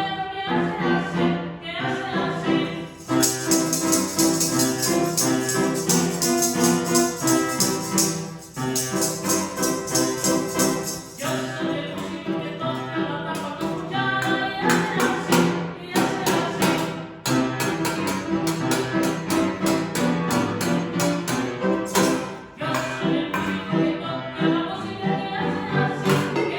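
Children's action song played on piano with percussion, a steady beat throughout. A bright, fast jingling rhythm joins from about three seconds in and drops out near eleven seconds.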